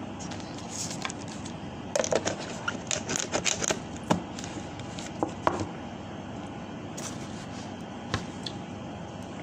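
A plastic straw scraping and clicking in a tub of frozen ice cream, with short sucking slurps, over a steady background hum. The clicks come in a busy cluster a couple of seconds in, with one more near the end.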